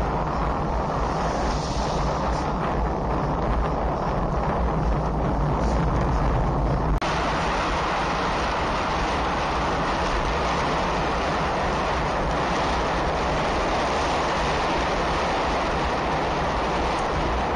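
Steady wind buffeting the action camera's microphone, mixed with road noise while riding. The sound changes abruptly about seven seconds in, with less low rumble and more hiss afterwards.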